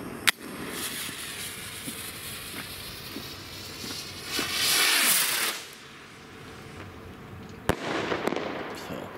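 Small Rubro Speed Rocket firework: the lit fuse hisses, then the rocket launches with a loud whoosh about four and a half seconds in. Near the end it bursts with one sharp bang followed by a brief spell of crackling.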